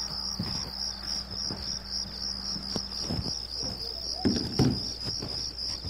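Crickets chirping in a steady, evenly pulsing high-pitched trill. A couple of soft thumps about four and a half seconds in are the loudest sounds.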